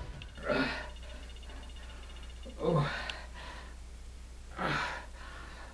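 A man groaning and gasping in pain, three short groans about two seconds apart, as if from a blow to the ribs.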